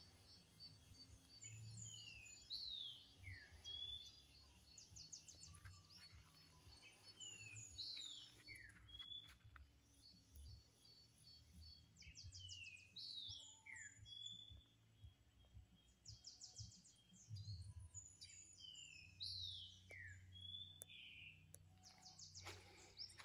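Faint wild birdsong: short falling whistles and quick high trills come in clusters every few seconds, over a low rumble.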